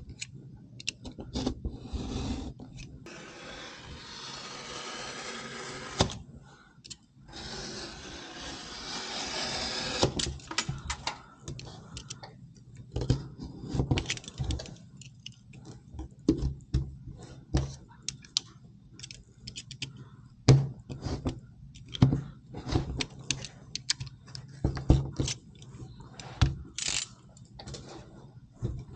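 Hand work on wall boards: two spells of steady scraping a few seconds long, then scattered taps, clicks and knocks as the panels are handled.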